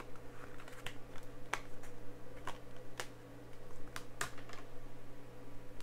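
Plastic Blu-ray case being handled, a string of irregular sharp clicks and taps as the disc is worked free of its hub, over a faint steady room hum.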